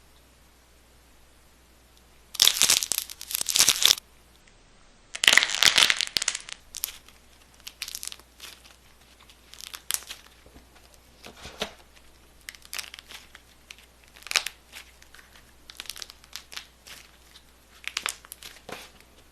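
Crunchy slime squeezed and pressed by hand, crackling and popping. After about two seconds come two long, loud bursts of crackle, then shorter, quieter crackles about every second.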